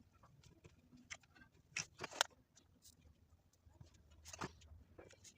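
Faint scattered clicks and taps of hands working with small parts and wires. The loudest are a few sharp clicks about two seconds in and another about four and a half seconds in.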